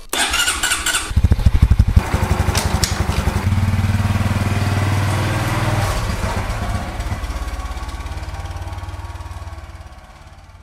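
Motorcycle electric start: the starter whirs for about a second, the engine catches and runs with an even beat, then pulls away and fades out near the end.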